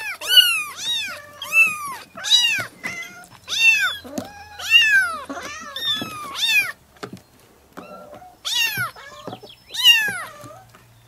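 Kitten crying with repeated high-pitched meows, each rising and then falling in pitch, coming in quick succession, then a short pause about seven seconds in before two more.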